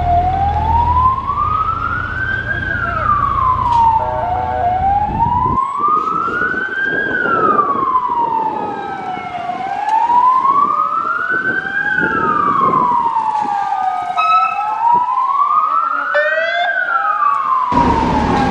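Fire engine siren wailing, rising and falling slowly about once every four and a half seconds, with a second, fainter siren wailing out of step with it. A low engine rumble runs under it for the first few seconds.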